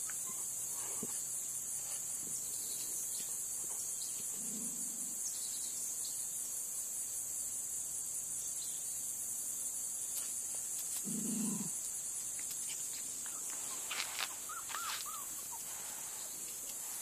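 Steady, high-pitched droning of insects in the grass, with a couple of soft low thuds partway through and a few faint short squeaks near the end.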